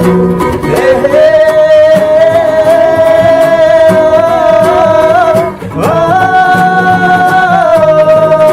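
Wordless singing over a strummed acoustic guitar: one long held note, a brief break about two-thirds of the way in, then a slide up into another long held note.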